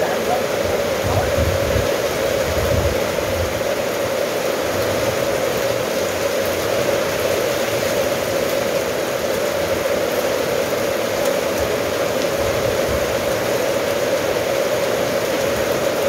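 Steady rain falling on corrugated metal roofing and wet ground, an even hiss with no pauses.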